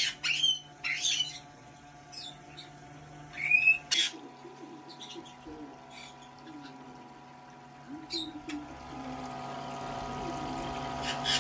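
White-bellied caique giving a few sharp squawks, then a toy doll bath running: a small pump humming and water pouring from its little faucets and shower into the plastic tubs, quite loud and growing louder toward the end.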